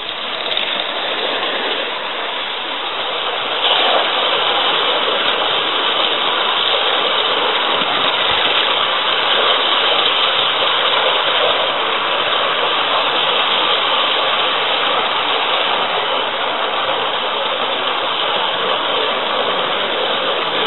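A Gauge 1 live steam model train running, heard from a camera riding on one of its wagons: a steady rushing noise of wheels on rails and steam. It grows louder over the first few seconds, then holds even.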